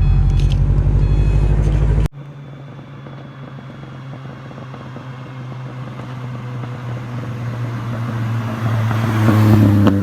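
Car engine running, cut off suddenly about two seconds in, followed by a quieter steady engine hum that builds gradually louder.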